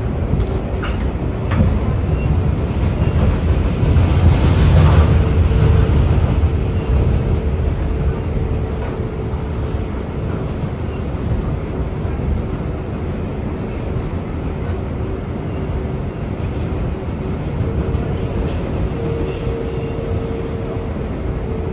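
A New York City Subway 7 train R188 car running, heard from inside: a steady low rumble of wheels and motors that swells louder for a couple of seconds about four seconds in. A faint steady whine comes and goes above it.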